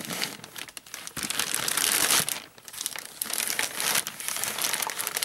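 Thin plastic bag crinkling and rustling as it is pulled off a molded plastic pumpkin, with a brief lull about two and a half seconds in.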